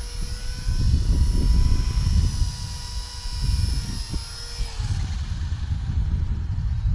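Blade 200 SRX electric RC helicopter's motor and rotor whine while it hovers, then dipping in pitch and fading out a little under five seconds in as it sets down and spools down. Gusty wind buffets the microphone throughout.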